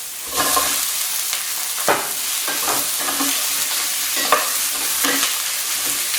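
Fried chicken wings going back into a hot pan of sesame oil, shallot and peppers: the sizzling jumps up about half a second in and carries on loudly, with a utensil scraping and knocking against the pan as they are stirred.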